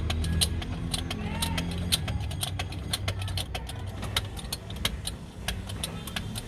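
A jack being pumped to raise a car engine: quick, irregular metallic clicks and clinks several times a second, over a low steady hum.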